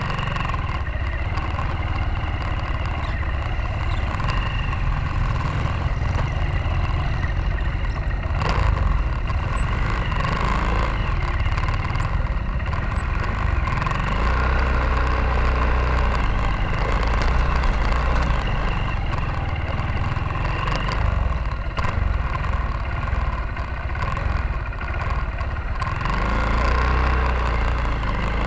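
Motorcycle engine running at low speed on a rough dirt road, picked up from the bike itself, rising and falling with the throttle, with a few brief knocks.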